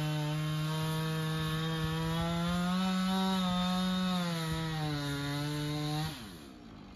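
Chainsaw running at high revs, its pitch rising a little midway, then falling away as it is throttled down about six seconds in.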